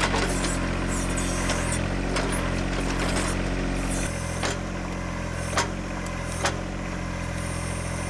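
John Deere 1025R compact tractor's three-cylinder diesel running steadily as it works its 260 backhoe, the engine note changing about four seconds in. A few sharp knocks from the digging sound over it.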